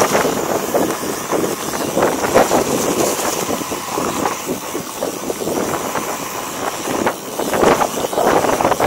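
Wind buffeting a chest-mounted action camera's microphone as a mountain bike descends a dirt trail, with tyres crunching on loose dirt and irregular rattles and knocks from the bike over bumps.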